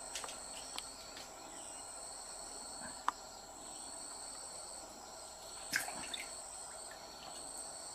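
Insects chirring steadily in a few high, even tones, with a few small clicks and a brief, louder knock about six seconds in.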